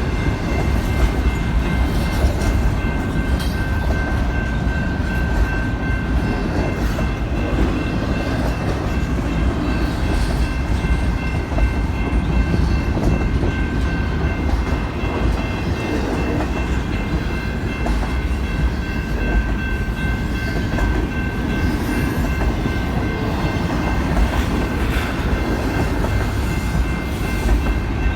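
Intermodal double-stack freight train rolling past: a steady heavy rumble of wheels on rail with some clatter, and a thin steady high-pitched ringing tone running over it.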